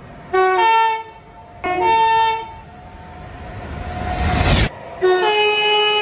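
Train air horn sounding two short chord blasts, each opening on a lower note that jumps up, then a rising roar of a passing train that cuts off suddenly, then a third horn blast near the end.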